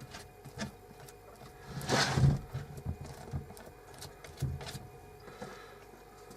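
Handling noises of hand work at a bench: scattered light knocks and clicks, with one louder scraping rustle of about half a second around two seconds in.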